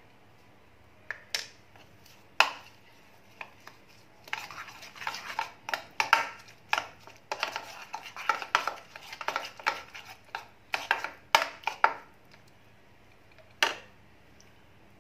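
Steel spoon clinking and scraping against a bowl while a thick curd-and-spice marinade for prawns is mixed: a few separate taps at first, then brisk continuous stirring from about four seconds in until about twelve, and one more tap near the end.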